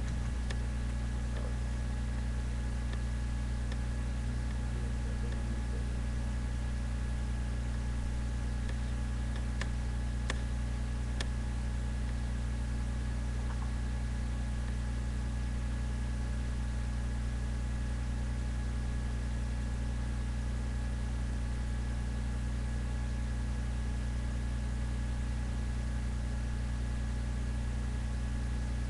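Steady low background hum with no speech or music, level and unchanging.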